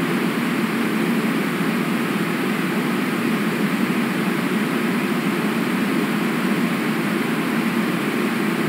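Steady, even rush of river water, with no changes or separate events.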